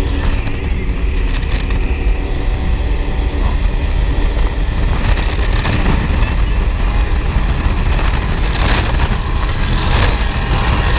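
Powerboat engines running at speed on the water, a steady low rumble.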